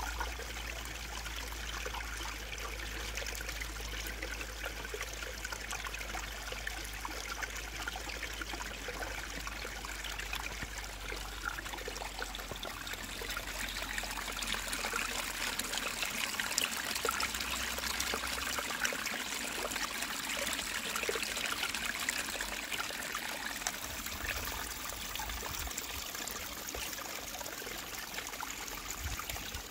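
Water trickling and dribbling from the neck of an animal-skin water bag into a small metal bowl. The trickle runs steadily and grows a little louder about halfway through.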